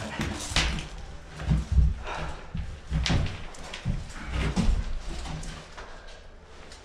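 Irregular footsteps and knocks of a player moving low across the floor of a building, with a few louder thumps about one and a half to two seconds in.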